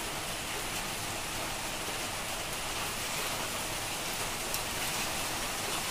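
Duck curry sizzling steadily in an aluminium wok over a gas burner, uncovered, with a couple of faint spatula clicks near the end as it is stirred.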